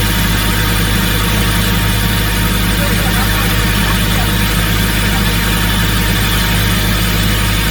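Excavator-mounted hydraulic rock core drill rig running steadily, its diesel engine and hydraulics holding a constant low drone with no change in pace.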